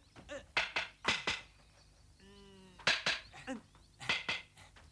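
Wooden sticks clacking together in a sword duel: sharp knocks coming in quick pairs, about four pairs in all, with a short held vocal sound near the middle.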